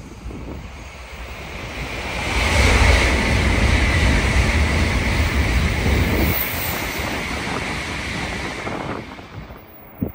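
Tokaido-Sanyo Shinkansen train passing through at high speed without stopping: a rush of air over a deep rumble. It swells quickly about two seconds in, holds for a few seconds, then fades away.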